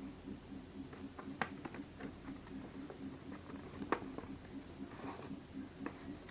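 A sheet of origami paper rustling and crinkling as it is folded and creased by hand, with scattered small crackles; the sharpest come about a second and a half in and near four seconds in.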